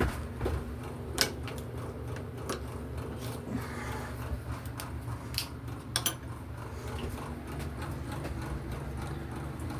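Scattered light clicks and knocks of small hard objects being handled, over a steady low hum.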